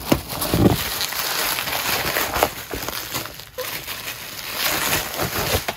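Bubble wrap crinkling and crackling as it is handled and pulled off a packed item, with a brief lull about three and a half seconds in.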